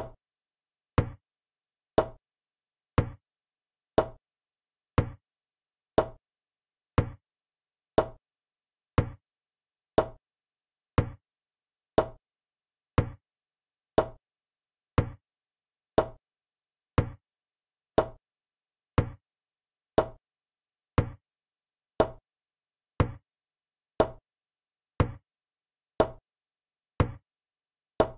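Chess board software's move sound: a short, sharp click once a second, one for each piece moved as the game is played through.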